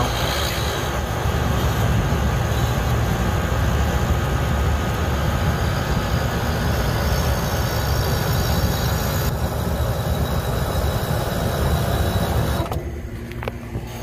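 Walk-in freezer condensing unit running with its Copeland Scroll compressor, a steady low hum, started by pushing the contactor in by hand because its coil gets no power. The level drops sharply about a second before the end.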